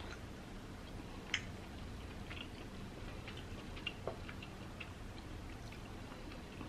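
Faint, scattered small clicks from fingers pulling and dipping sauce-covered king crab meat, with one sharper click about a second and a half in.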